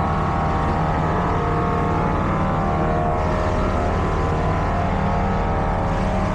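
Napa Valley Wine Train running with a steady mechanical hum: a constant low drone with several unchanging tones over it.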